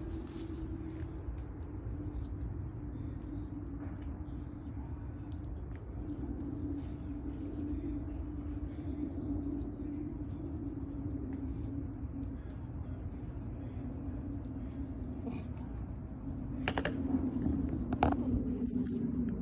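Outdoor ambience: a steady low hum with faint, short high chirps repeating about once a second, and two sharp knocks near the end.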